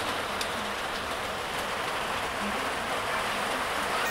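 Pork simmering and sizzling in a pan of reduced sauce on a gas stove: a steady hiss.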